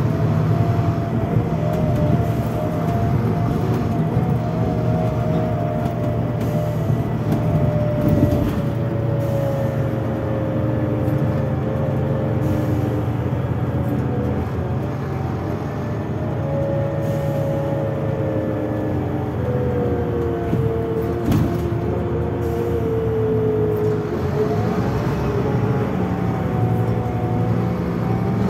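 Scania DC9 diesel engine of a Scania K320IB coach with Opticruise gearbox, running on the move. Under a steady low drone, a whine slowly falls in pitch for about twenty seconds as the coach slows, then rises again near the end as it picks up speed.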